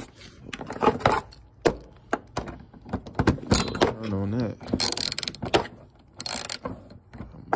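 Hand ratchet with an extension working bolts on the radiator cover: scattered metal clicks and clanks, then two short bursts of rapid ratchet clicking about five and six seconds in. A brief wordless voice sound comes about four seconds in.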